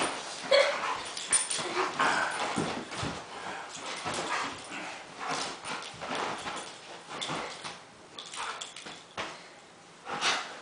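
A dog playing roughly on a bed: short dog vocal sounds mixed with scuffling and rustling of the bedding, in irregular bursts. The sounds die down near the end as she settles.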